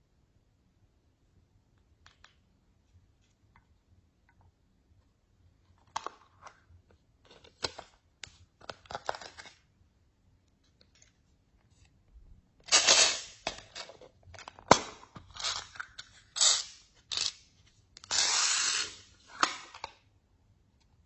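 Slime being mixed and squeezed by hand: irregular bursts of sticky crackling and popping, sparse at first and loudest in the second half.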